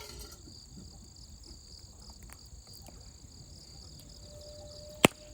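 Wood campfire crackling with scattered small pops and one sharp, loud crack near the end, over the steady high chirring of insects.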